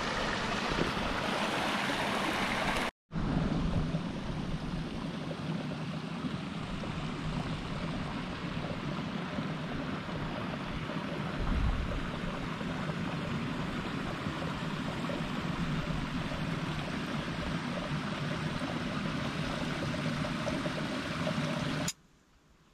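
Water at a river pool rushing steadily over rocks: an even, unbroken rush with a short break about three seconds in. It cuts off suddenly near the end.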